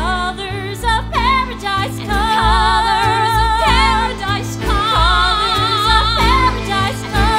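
Musical-theatre song: voices singing held notes with vibrato over instrumental accompaniment with a steady bass line.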